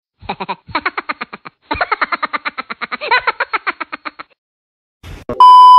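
An edited-in comic sound effect: two quick runs of short, pitched chattering pulses, about seven a second. Near the end a loud, steady censor-style beep tone cuts in.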